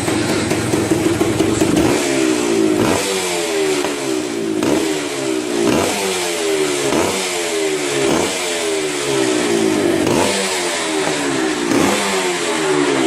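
Yamaha DT125 two-stroke single-cylinder engine running at a steady speed, then revved in quick throttle blips from about two seconds in, roughly once a second, each rev rising sharply and falling back.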